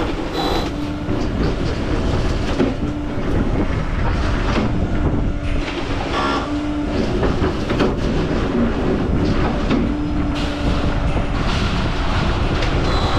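Heavy machinery running steadily with a rattling clatter, and a low hum that comes and goes.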